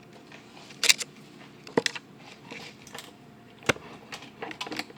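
Handling noise: a few sharp, separate clicks and knocks, loudest just under a second in, near the two-second mark and a little past three and a half seconds, with a run of lighter taps near the end.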